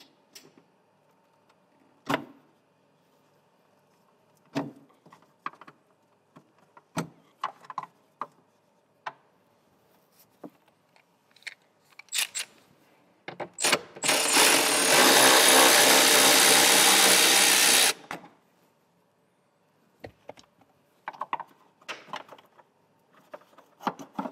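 Scattered clicks and knocks of wiring-harness connectors and plastic being handled and unplugged, then, about halfway through, a power driver runs steadily for about four seconds, undoing the small 10 mm bolt that holds the charge-port ECU.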